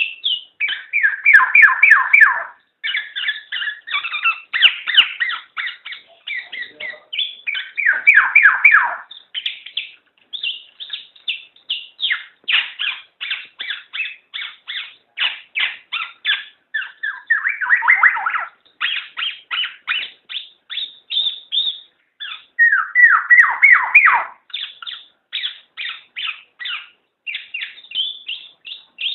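Black-naped oriole (kepodang) calling: a fast, continuous run of short chirping notes, several a second. Louder harsh rasping calls break in about two seconds in, near eight seconds, and twice more later.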